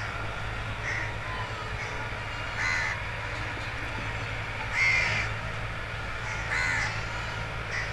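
Crows cawing: four short harsh calls spaced a second or two apart, the loudest about five seconds in, over a steady low hum.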